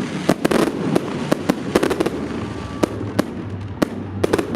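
Festive fireworks salute: about a dozen sharp bangs of bursting shells at irregular intervals over a steady crackle. A low hum comes up near the end.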